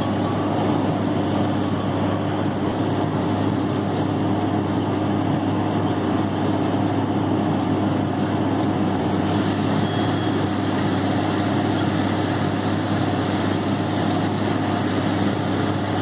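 Tractor engine running steadily under load while it pulls a large square hay baler along a windrow: an even, unchanging drone with a strong low hum.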